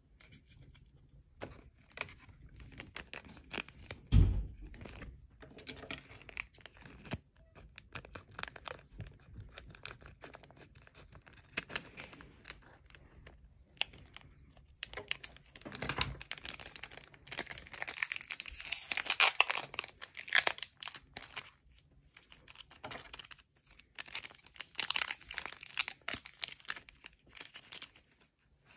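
Foil Pokémon booster-pack wrapper crinkling and rustling as it is handled, snipped open with scissors and the cards worked out, in thick spells of crackle in the second half. A single loud thump on the table about four seconds in.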